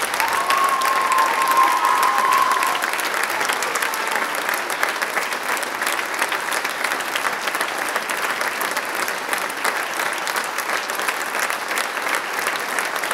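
Theatre audience applauding steadily during a curtain call, a little louder in the first few seconds, with a brief held call from the crowd near the start.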